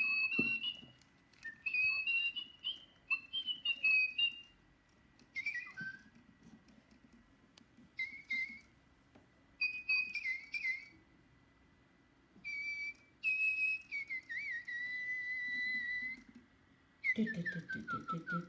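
Little Live Pets Tweet Talking toy bird playing its electronic birdsong: short high whistled chirps and warbles in bursts with silent gaps, ending in a falling whistle.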